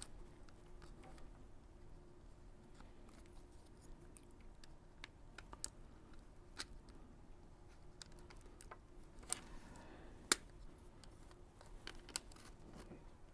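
Plastic opening tool prying around a PSP's plastic case, with faint scraping and scattered sharp clicks as the clips pop loose; the two loudest snaps come about nine and ten seconds in.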